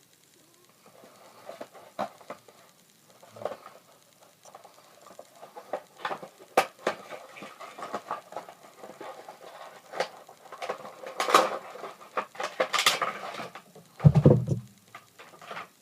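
Packaging being handled and opened: irregular rustling, scraping and light tapping, with a heavier thump about two seconds before the end.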